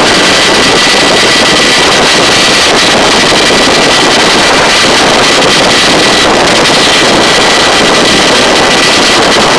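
Search-and-rescue helicopter in a hover, its rotor and engine noise loud and steady, with rushing wind and a thin steady whine running through it.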